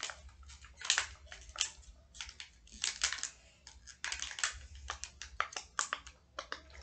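Silicone pop-it fidget toy having its bubbles pressed: an irregular run of short clicky pops, several a second.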